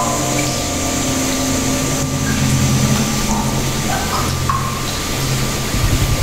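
Shallow creek water rushing steadily over rock, under slow background music of long held notes.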